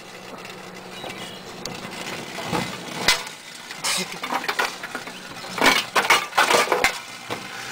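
Microwave oven running with a steady hum while aluminum foil inside arcs, giving irregular sharp snaps and crackles that come in clusters, the thickest from about five and a half seconds in.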